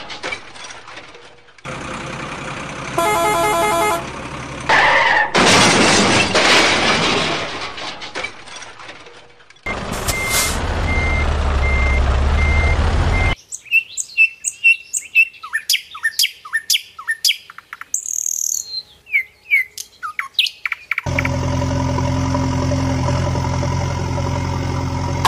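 A patchwork of vehicle sound effects: noisy stretches with a short horn-like tone about three seconds in, birds chirping through the middle, and a truck engine running steadily near the end.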